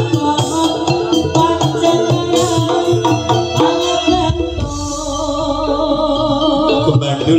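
Music played loud through a huge stacked 'sound horeg' outdoor speaker system, with a busy percussion beat and melody. About four seconds in, the beat drops away and a deep, steady bass with held notes carries for about three seconds before the beat returns near the end.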